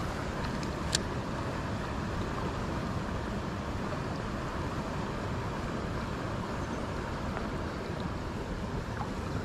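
Steady rushing of a small stream's flowing water, with a single sharp click about a second in.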